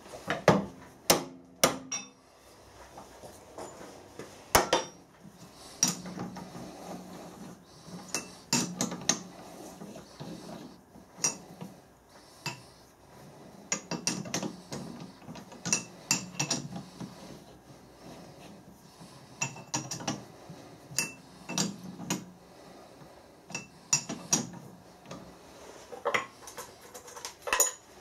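Lathe four-jaw chuck being adjusted by hand: a steel chuck key fitting into and turning the jaw screws, with irregular metal clinks and clanks as key and jaws knock against the chuck.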